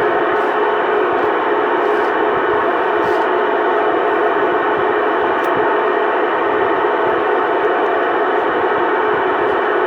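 CB radio receiver carrying a keyed-up transmission: an unbroken, loud hiss and hum with no voice, cut off sharply above the radio's audio range.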